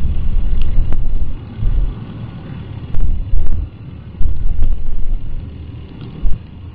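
Wind buffeting a helmet-mounted microphone on a moving motorcycle, with engine and road rumble underneath, swelling and dropping in irregular gusts.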